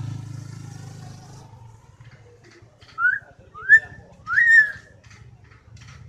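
Hill myna whistling three short rising notes about two-thirds of a second apart, each sweeping up and then levelling off, the last one the longest. A passing motorcycle's engine fades out in the first couple of seconds.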